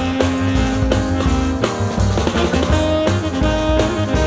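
Music track with drums keeping a steady beat under held instrumental notes.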